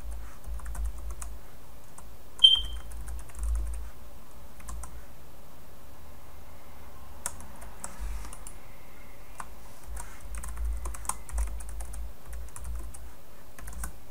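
Typing on a computer keyboard in bursts of key clicks, with one short high beep about two and a half seconds in.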